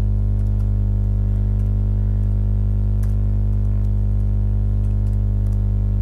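Loud steady electrical hum with a ladder of overtones, which does not change. Over it come a few faint computer-keyboard keystrokes as text is typed.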